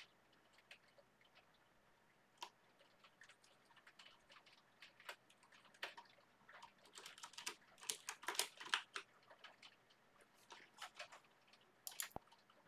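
Typing on a computer keyboard: faint, irregular key clicks, sparse at first and busiest about eight seconds in.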